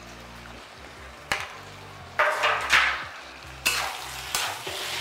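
Flat metal spatula stirring and scraping a thick potato, pea and paneer curry around a kadhai over a light sizzle. There is a sharp knock about a second in, then several scraping strokes in the second half.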